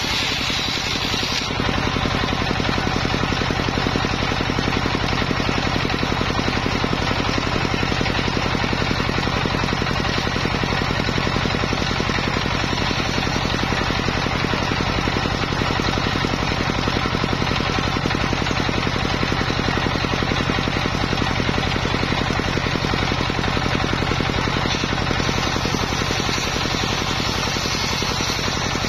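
Homemade circular saw running steadily under power, its blade cutting through petung giant-bamboo stump, with a continuous machine drone and a sawing hiss. The hiss is brighter for the first second and a half, then settles into a steadier, lower noise.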